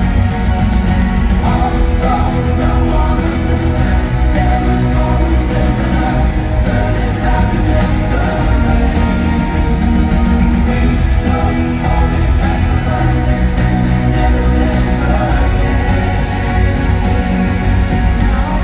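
Live pop-rock band playing a loud, steady full-band passage with singing, as heard from the crowd in an arena.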